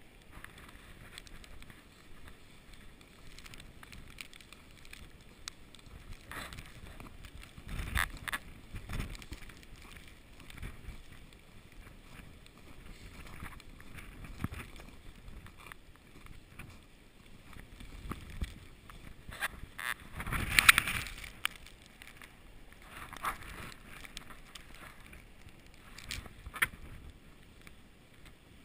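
Snowstorm wind blowing and gusting over the microphone, with scattered faint clicks. The strongest gust comes about two-thirds of the way in.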